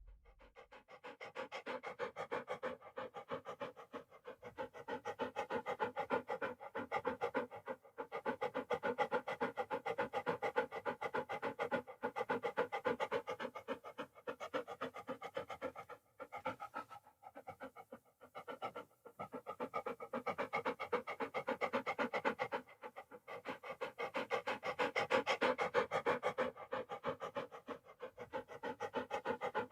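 A dog panting rapidly, quick even in-and-out breaths, in runs of several seconds broken by brief pauses.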